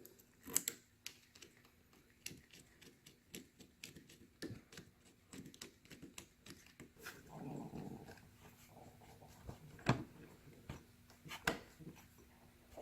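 Faint small clicks and taps of a hand tool and the screw as a turn signal's backing plate is screwed on, with two sharper clicks near the end. A short muffled low sound comes about seven seconds in.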